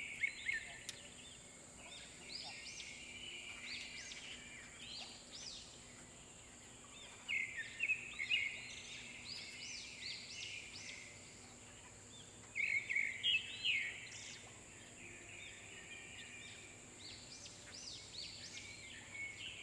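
Birds chattering in bouts of quick, high chirps that come again every few seconds, over a faint steady high whine.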